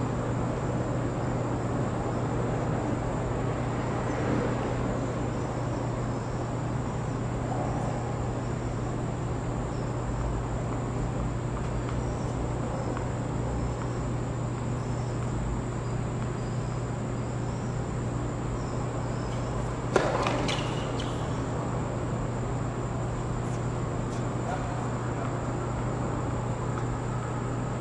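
Steady background hum of an open tennis court, with a single sharp tennis-ball impact about two-thirds of the way through, followed by a few faint knocks.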